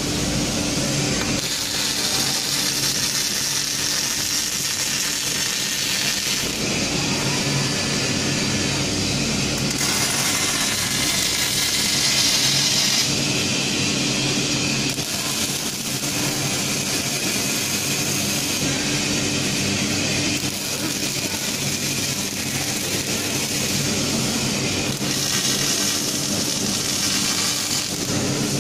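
Steady hum and hiss of a robotic MIG welding cell, with the welding power source and a cooling fan running. Near the end the robot's welding arc strikes and crackles as it lays a bead.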